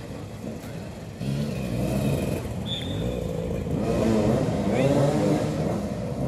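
Several motoball motorcycles' engines running and revving on a dirt pitch, their pitch rising and falling as the riders accelerate and ease off. The engines are quieter for the first second or so, then louder.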